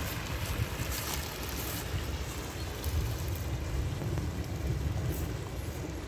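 Shallow stream rushing and babbling steadily over a stony riffle, with wind noise on the microphone underneath.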